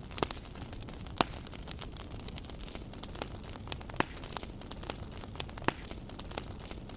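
Campfire crackling with many small irregular pops and four louder snaps, over a low steady rumble.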